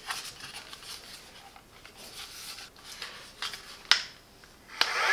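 Faint handling noise of the small plastic handheld vacuum: light rubbing and small clicks, with a sharper click about four seconds in and another near the end.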